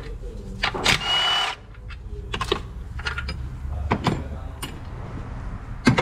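Milwaukee cordless electric ratchet runs in one short burst about a second in, with a high motor whine, loosening a bolt on an engine-mount bracket. A few sharp metallic clicks and knocks of the tool and socket against the bracket follow.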